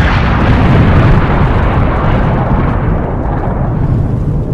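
Explosion-and-fire sound effect on an animated outro: a loud, continuous rumble whose upper hiss fades away over the last few seconds.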